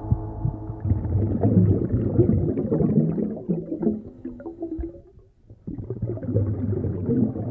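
Underwater soundscape of gurgling, bubbling water over a low rumble. It fades to a brief lull about five seconds in, then returns.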